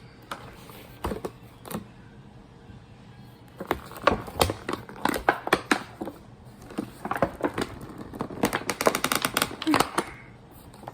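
Doll-box packaging being cut and forced open with small scissors: irregular snips, clicks and crackles of cardboard and plastic, with a quick run of clicks a little before the end.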